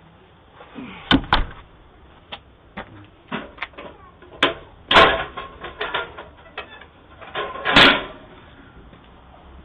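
A house door being opened and shut, with a string of sharp knocks, clicks and clatter: a close pair about a second in, a loud one around five seconds, and a longer burst near the end.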